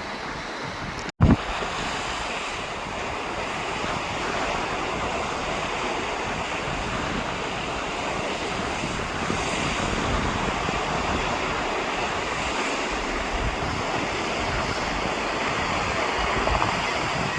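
Steady wind noise on the microphone mixed with the wash of surf. About a second in, the sound cuts out for an instant and is followed by a short loud knock.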